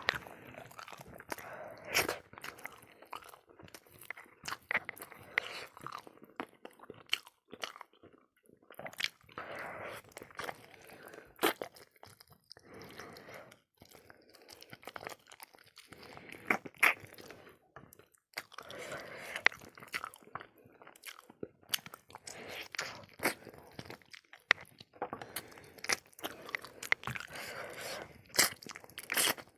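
Close-miked chewing and biting: a person eating pieces of pickled pork trotter held in the hand, with many short crunches at an irregular pace.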